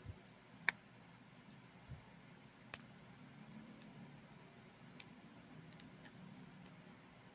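Faint, sharp clicks as a thin curved pry tool is worked around the edge of a cracked phone screen, prising the glued LCD away from the frame. The loudest click comes about a second in, another near three seconds, and a few smaller ones later, over a low steady hum and a faint high whine.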